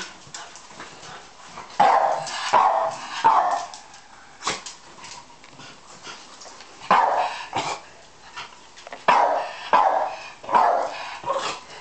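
Jack Russell terrier barking at a vacuum cleaner: about nine sharp barks in three bursts. There is also a single sharp knock about four and a half seconds in.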